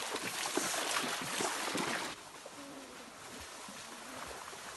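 Feet splashing as they wade through a shallow stream. About two seconds in it gives way to a quieter, steady sound of running water.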